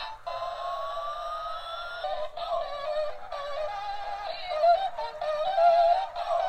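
Electronic tune playing from a battery-powered toy flying car's small built-in speaker, thin, with no low notes. A rising electronic tone runs over the first two seconds, then a warbling synthesized melody follows.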